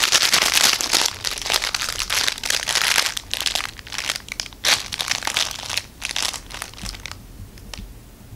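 Crinkle-filled plush dog toy crinkling as it is shaken at a dog and then chewed by him: dense at first, then in short irregular bursts that die away about seven seconds in.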